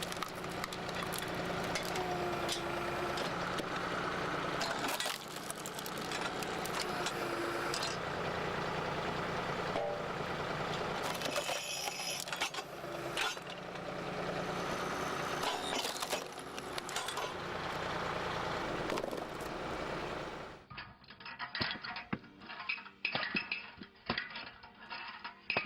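Hydraulic firewood splitter-processor running: a steady machine hum under a continuous clatter of wood and metal. About twenty seconds in, this gives way to a thinner-sounding recording of separate sharp knocks.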